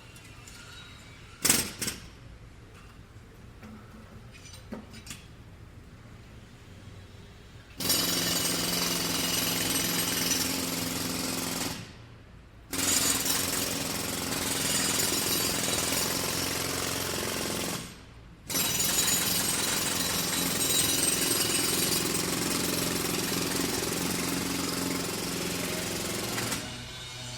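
Jackhammer breaking up hard material in three long runs, each stopping briefly before starting again, after a quieter stretch of street background with a couple of sharp knocks.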